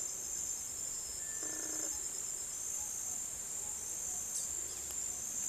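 Steady high-pitched trilling of insects, with a second, fainter pulsing call just below it.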